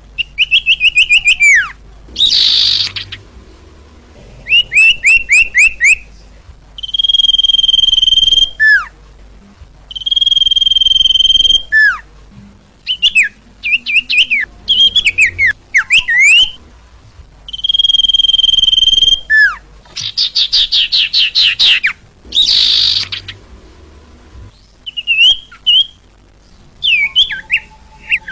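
Bird song recording used as a trapping lure, of the bird called burung sirtu in Indonesian. Phrases follow one another with short gaps: long steady high whistles, quick runs of short chirps, falling glides, and two harsh rasping calls, one early and one about two-thirds of the way in.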